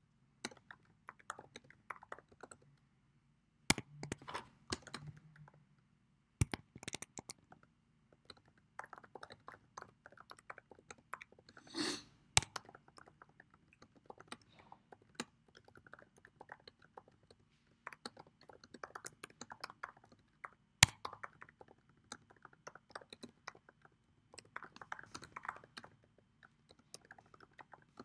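Typing on a computer keyboard: irregular runs of key clicks with short pauses, and a few louder single key strikes.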